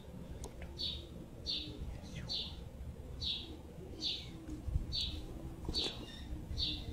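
A small bird chirping over and over, one short high chirp roughly every second, about eight in all.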